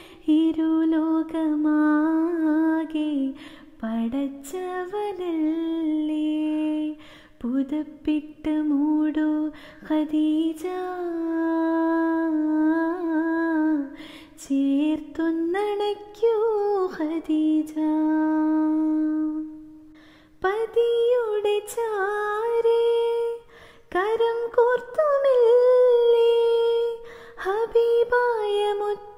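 A woman singing a Mappila song solo with no accompaniment, in long held notes joined by sliding ornamental turns, with short pauses for breath.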